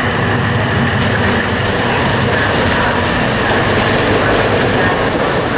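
Electric trains moving through a station: a steady running noise from the rolling stock on the rails.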